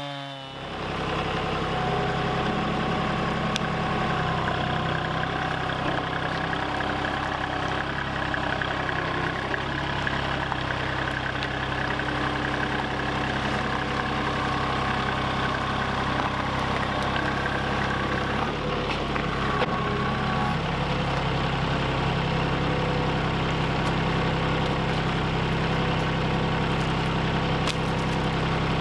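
Tractor engine running steadily, its low note changing briefly about two-thirds of the way through.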